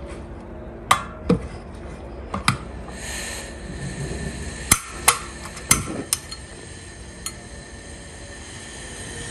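Portable gas camping stove being lit: a run of sharp igniter clicks, about eight spread over several seconds, and from about three seconds in the gas hissing steadily through the burner.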